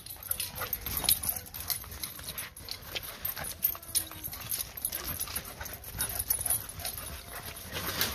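Dogs running fast across a concrete patio, their paws and claws striking the paving in quick, irregular footfalls.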